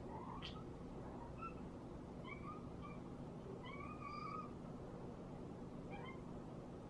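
Kitten giving a series of short, high mews as it watches a moving mouse pointer; the longest call comes about four seconds in. There is a sharp click just after the start.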